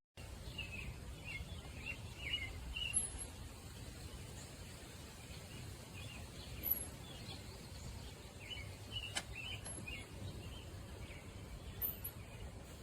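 Outdoor ambience: small birds chirping in short scattered calls over a steady low rumble, with one sharp click about nine seconds in.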